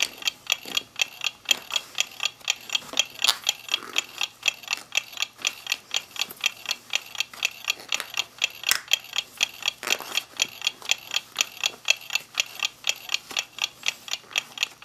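Mechanical clocks ticking steadily, about four ticks a second, with a few louder clicks in between.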